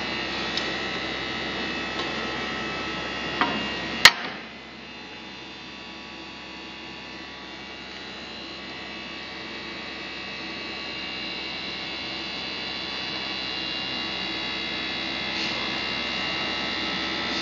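Steady electrical machine hum with several steady tones, from the UV flatbed printer. A sharp click sounds about four seconds in, and the deep low rumble under the hum stops at that moment.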